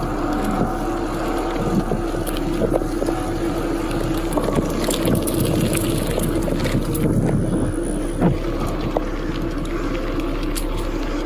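Wind buffeting the microphone of a bike-mounted camera over the rumble of a mountain bike's tyres rolling fast on pavement, with scattered knocks and rattles from the bike.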